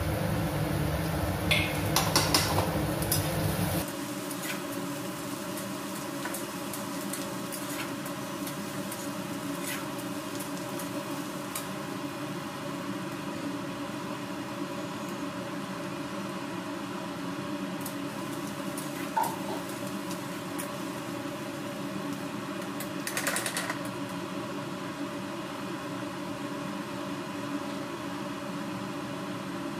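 Chopped onions and green chillies frying in mustard oil in a steel kadai, sizzling steadily over a faint steady hum. In the first few seconds a steel spatula clinks against the pan.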